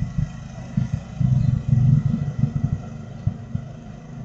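Small motorcycles passing along the lane, a low, uneven engine rumble that swells for a couple of seconds in the middle and then fades, picked up by a security camera's microphone.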